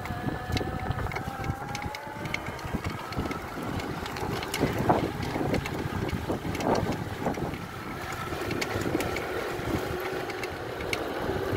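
Front brushless hub motor of a converted electric mountain bike whining under throttle, over tyre and wind noise on a tarmac path. The whine rises slightly at first, fades in the middle and comes back lower-pitched near the end, with a couple of short louder noises in between.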